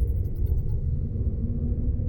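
Cave ambience: a steady, deep rumbling drone, with a few faint high ticks in the first half-second.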